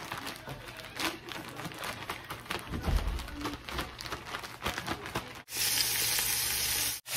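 A plastic bag holding flour and chicken pieces rustling and crinkling as it is shaken, with a dull thump about three seconds in. About five and a half seconds in, flour-coated chicken pieces frying in hot oil take over as a steady, louder sizzle.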